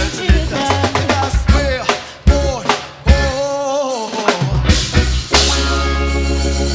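Live reggae band playing the song's closing bars: drum hits and fills under moving instrumental lines, then the band lands on a long held final chord over a sustained bass note about five seconds in.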